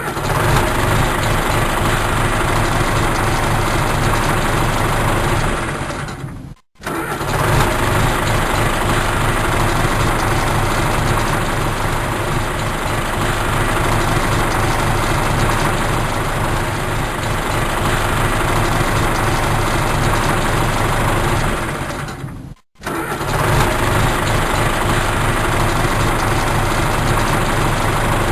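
Tractor engine running in three separate takes, each ending in a short fade with a brief silence about six and a half and twenty-two and a half seconds in.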